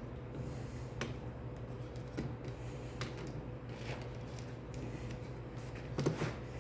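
Scattered light clicks and taps of small chainsaw starter parts being handled, with a louder cluster of clicks about six seconds in, over a steady low hum.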